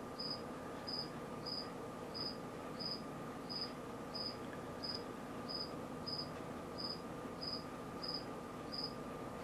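A cricket chirping steadily, short high chirps about three every two seconds, over a faint steady hum.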